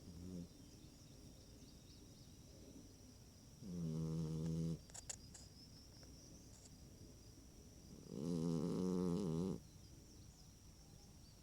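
A dog snoring: two drawn-out, pitched snores about four seconds apart, each lasting a second or so, with quiet breathing in between. A faint steady high whine runs underneath.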